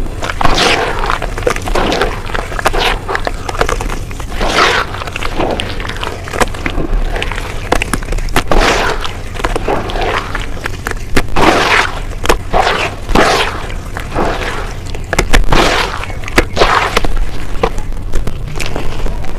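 Close-miked crunching of brown dirt paste: a run of irregular gritty crunches and crumbles, about one or two a second.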